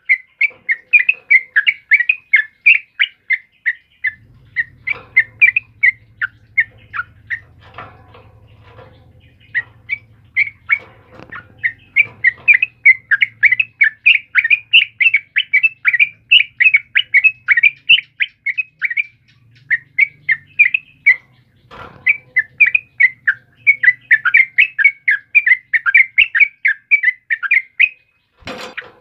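Yellow-vented bulbul (trucukan) singing persistently: a fast chattering run of short, bright notes, several a second, broken by brief pauses.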